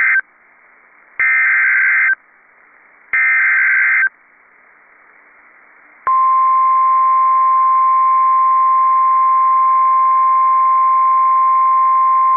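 NOAA Weather Radio SAME alert header: the tail of one data burst, then two more bursts about a second long each. About six seconds in, the steady 1050 Hz warning alarm tone starts and holds, signalling a warning-level message, here a severe thunderstorm warning.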